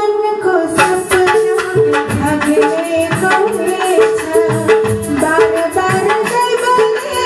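A woman sings a Nepali folk song live into a microphone, backed by a steady hand-drum rhythm.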